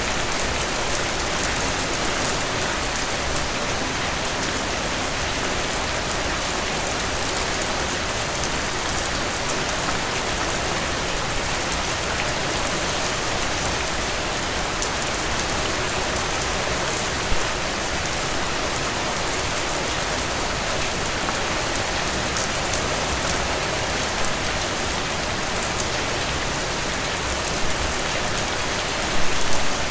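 Steady rainfall: a dense, even hiss with individual drops ticking through it, and a few louder single drops, most of them in a short cluster near the end.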